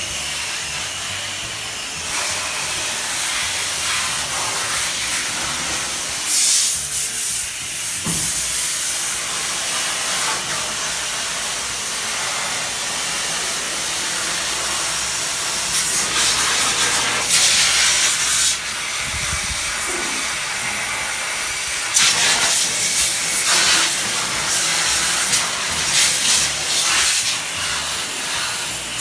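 Water spray hissing against an air conditioner during cleaning, steady with louder stretches where the jet comes and goes.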